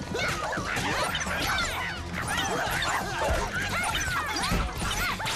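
A swarm of small cartoon Sapotis creatures chattering and yipping in many overlapping, high, squeaky calls. A couple of low thuds come in the second half.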